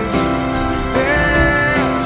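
A song with guitar, with one melody note held steady through the second half.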